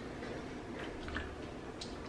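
A metal spoon stirring sliced strawberries in cream in a glass bowl: soft wet mixing with a few light clinks of the spoon against the glass.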